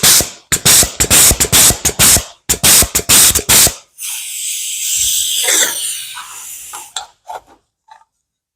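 Astro Pneumatic 605ST air flange-and-punch tool being cycled: a quick run of sharp bursts of exhaust air for about four seconds, then a longer steady hiss of escaping air, and a few light clicks near the end.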